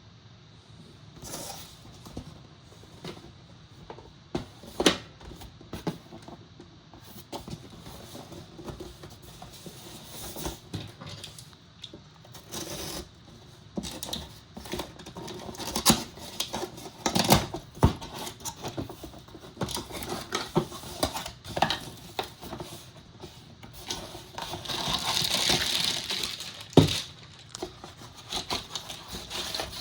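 A laptop's cardboard box and packaging being handled in an unboxing: scattered clicks, taps and knocks with rustling, the sharpest knocks near the middle and just before the end, and a longer rustle of packaging near the end.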